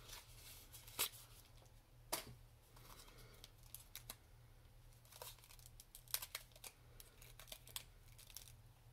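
Faint scattered crinkling and clicking as the packaging of a single magnetic eyeshadow pan is worked open by hand; it is a little hard to open.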